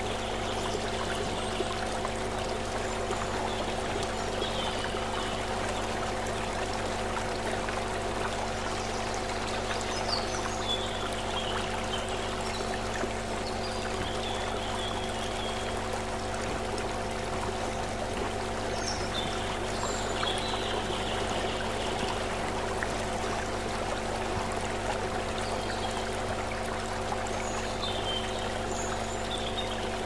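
Shallow stream running steadily over stones, an even rushing and burbling of water. A steady low hum of several tones runs beneath it, with a few faint high chirps now and then.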